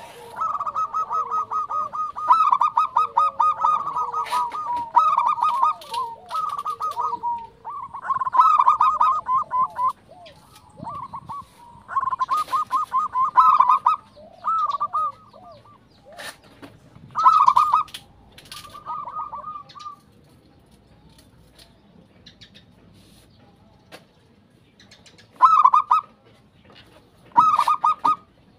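Zebra doves (perkutut) cooing, the manggung song: phrases of rapid staccato coo notes a second or two long, one after another. A few seconds' pause comes about two-thirds of the way through, then short phrases again.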